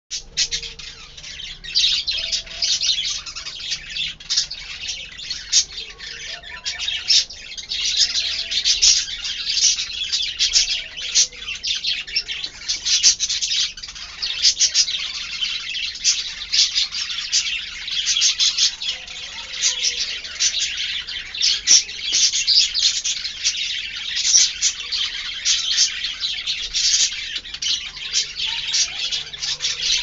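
Budgerigar warbling: a continuous, rapid chatter of high chirps and clicks.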